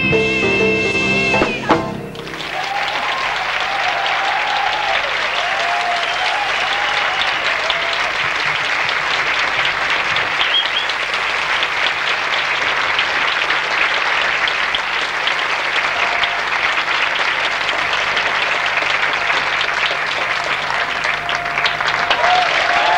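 The song's closing held note and accompaniment end sharply about two seconds in, and a theatre audience breaks into steady applause that keeps going.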